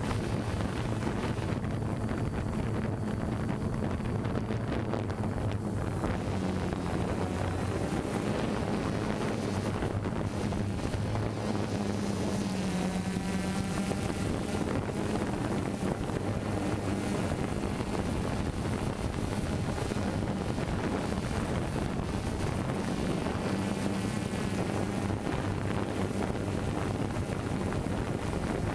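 Multirotor drone's propellers running with a steady hum, the pitch dipping slightly about halfway through, and wind rushing over the drone's onboard microphone.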